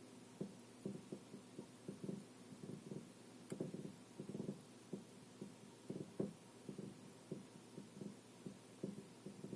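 Steering rack of a 2018 Kia Soul knocking: a run of irregular, dull low knocks, several a second, densest in the middle. The owner takes it for a knocking steering rack at only 7,000 km.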